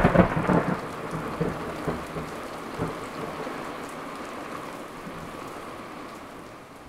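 Loud thunder at the very start, rumbling on in a few smaller claps over the first three seconds and then fading away. Steady rain falls throughout.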